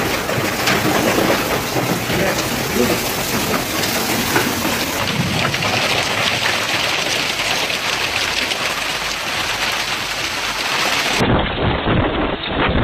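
Heavy hail and rain pelting down: a dense, steady hiss full of sharp ticks from hailstones striking the ground and nearby surfaces. The sound changes abruptly about five seconds in and again near the end, where it turns duller with more low rumbling.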